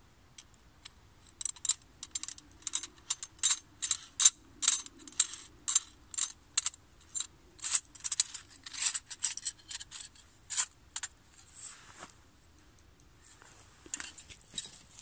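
Sharp metal clicks and clinks, about two or three a second, from the tubular metal handle sections of an all-metal collapsible buck saw being handled and fitted together; they stop a few seconds before the end.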